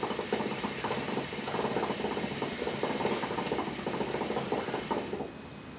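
Hookah water base bubbling in rapid gurgles as smoke is drawn through the hose, with no diffuser fitted in the Mya Bambino's vase. The bubbling stops about five seconds in as the draw ends.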